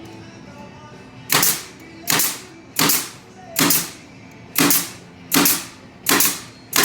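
Wood cabinet parts being nailed together: eight sharp, evenly spaced strikes a little under a second apart, starting about a second in.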